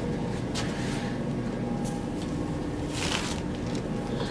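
Steady low rumble of a passenger train running along the track, heard from inside the carriage, with a short hiss about three seconds in.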